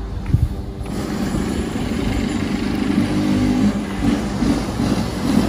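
An engine running steadily, with a continuous low rumble.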